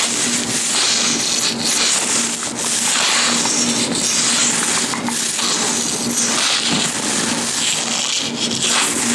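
Latex-gloved hands rubbing close to the microphone: a loud, continuous rubbing noise that swells and eases over and over.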